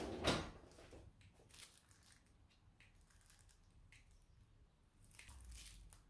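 Plastic cling film wrapped around a bread dumpling roll rustling and crinkling as it is handled, with a brief knock just after the start.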